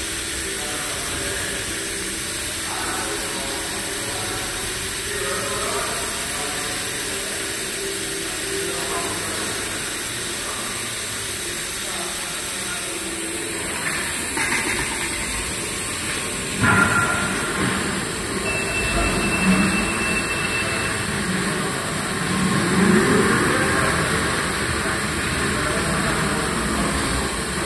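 Steady hum of a large industrial hall, with faint indistinct voices in the background. A sharp knock comes a little over halfway through, followed by a brief thin high tone.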